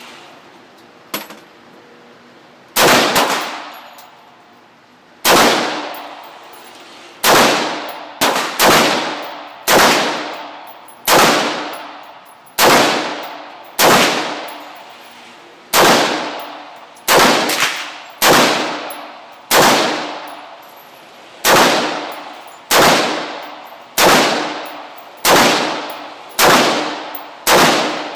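AR-15 rifle fired semi-automatically, about twenty single shots at an uneven pace of roughly one every second or so, each with a ringing echo that dies away.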